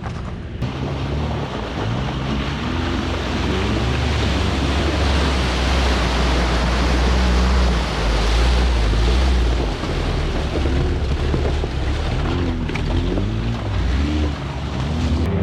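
Off-road vehicle engine labouring under load, its pitch rising and falling as the revs change, over a loud rushing of water and mud churned up as it ploughs through a bog.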